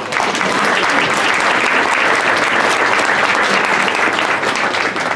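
Audience applauding: many hands clapping together, starting abruptly and dying away near the end.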